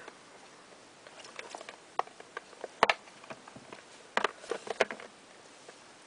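Clear plastic Apple packaging boxes being handled and set against each other: scattered light clicks and taps, the sharpest about three seconds in, then a quick run of taps a second or so later.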